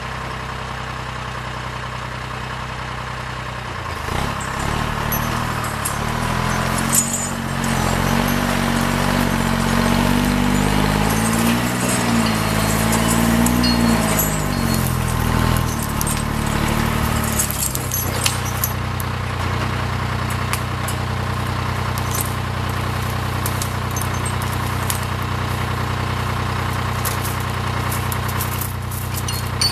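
Timberjack 230 cable skidder's diesel engine running. From about four seconds in it revs up and down as the machine moves in, and from about eighteen seconds on it settles back to a steady idle.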